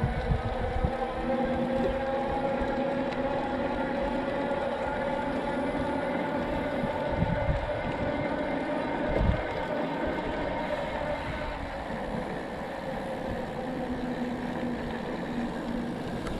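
A steady mechanical drone of several tones that slowly drift lower, with wind buffeting the microphone in gusts.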